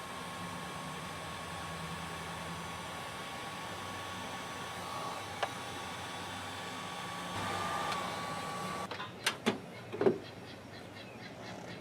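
A steady mechanical hum with a thin high tone, cutting off suddenly about nine seconds in, followed by a few sharp clicks and knocks.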